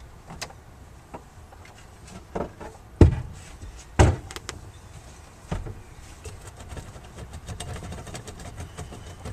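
A few sharp knocks and thumps at irregular spacing, the two loudest about three and four seconds in, over a low steady wind rumble.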